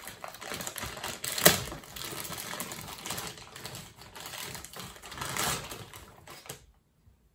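Clear plastic packaging bag crinkling and crackling as it is worked open by hand and a plastic part pulled out, with one sharp snap about one and a half seconds in. The rustling stops shortly before the end.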